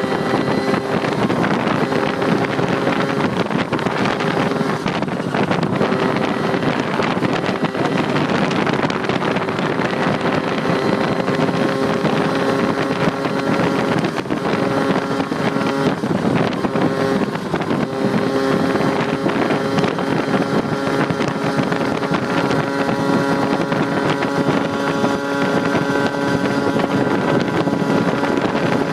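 Honda Urban Express's 49cc two-stroke engine running hard at high revs through its aftermarket expansion-chamber pipe, pushed toward about 10,000 rpm. The pitch holds fairly steady, with wind rushing over the microphone.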